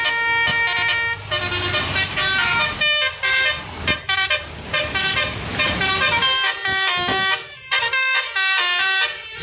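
A bus's telolet musical horn (basuri type) playing a quick tune, its notes jumping in pitch with short gaps between them.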